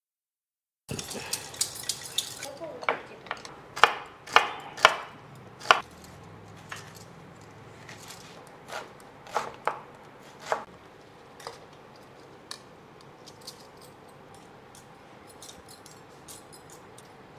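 Kitchen knife chopping red onion on a wooden cutting board: irregular sharp knocks, closest together and loudest a few seconds in, then sparser.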